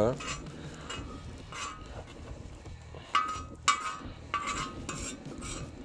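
Metal spatula scraping and clinking against a steel discada disc and a metal tray, in a series of short irregular strokes, the loudest just past halfway.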